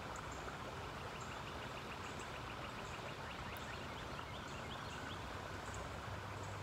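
Riverside outdoor ambience: a steady low hiss with faint, rapid high-pitched chirping running through it.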